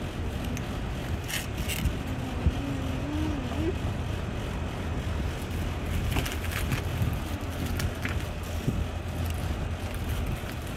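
Steady low outdoor rumble of wind and distant traffic. A few brief crinkles of foil snack bags being handled come about a second and a half in and again around six to seven seconds in.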